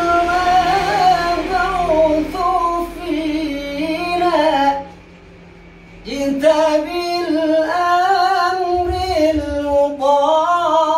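One voice singing a slow, ornamented melody in long held phrases, breaking off for about a second roughly halfway through and then carrying on.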